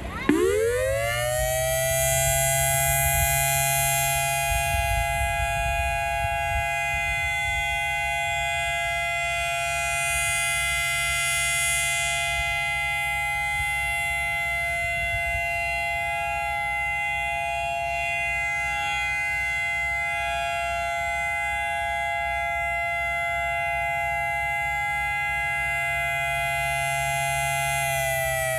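Whelen WPS-3000 electronic outdoor warning siren sounding a steady alert tone. It winds up quickly to pitch, holds a level tone with several notes sounding together, and begins to wind down right at the end.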